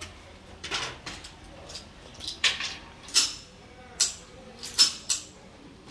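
A run of sharp metallic clicks and clacks, about nine over four seconds, from a rifle and magazines being handled and set down on a wooden bench.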